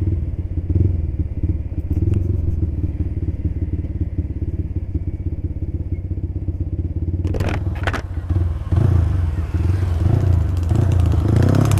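Yamaha Scorpio 225 single-cylinder engine breathing through an aftermarket Creampie slip-on exhaust, running at low speed under way with a steady low exhaust pulse, heard from the rider's seat. It grows louder from about nine seconds in.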